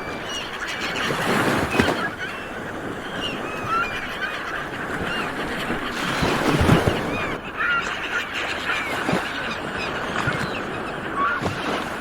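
Sea waves washing onto the shore, swelling twice, with a flock of birds calling throughout in many short honking cries.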